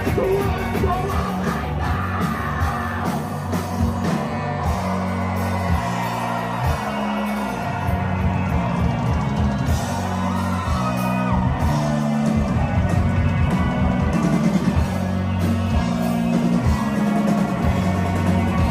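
A live rock band plays loudly through a festival PA, with a heavy, shifting bass line, drums, electric guitar and singing.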